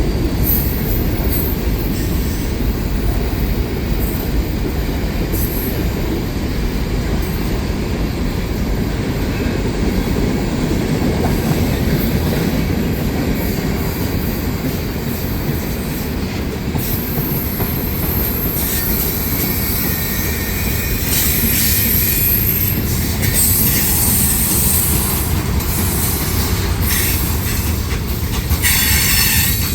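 Freight train cars rolling past with a steady, loud rumble of wheels on rail. From about halfway through, high-pitched wheel squeal comes and goes.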